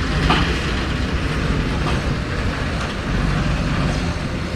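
Loud, steady engine rumble with a rattling, noisy texture from heavy military machinery, with a few small clicks.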